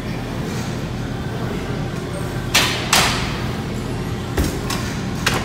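Clanks of metal weight-training equipment over a steady gym background: two loud clanks about a third of a second apart near the middle, then three lighter knocks toward the end.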